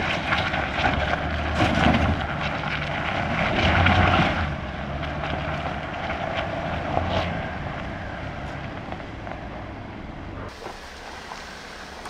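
Ineos Grenadier with front and rear cross-axle lockers engaged, crawling up a rutted dirt climb: its engine works steadily under load while the tyres grind over dirt and stones. It is loudest in the first few seconds, then quietens, and the sound changes abruptly near the end.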